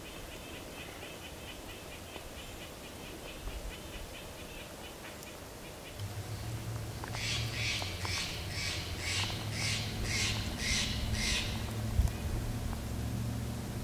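Wild animal calls in a conifer forest: a fast, high trill for the first half, then about ten loud, harsh calls at roughly two a second, over a low, steady rumble.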